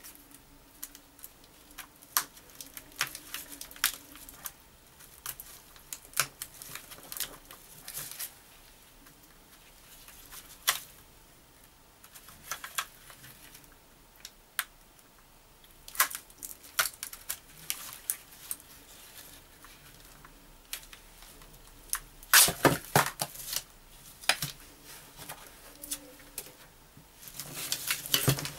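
Scattered plastic clicks and crackles from handling and prying apart the plastic housing of an RMG-1 tape-head demagnetizer. The loudest burst of sharp cracks comes about three-quarters of the way through, with more busy clicking near the end.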